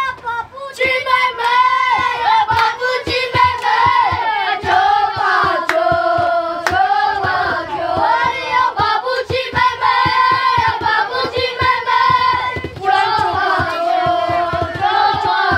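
A group of children singing a Taiwanese Indigenous song together in unison, clapping their hands along with it as a dugout cheer.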